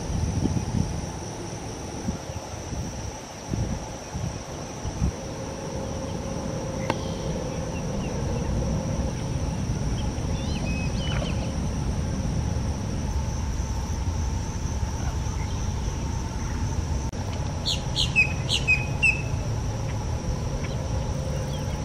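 Marsh ambience: a steady high-pitched insect drone over a low rumble, with a few faint bird calls and a quick run of sharp bird chirps near the end.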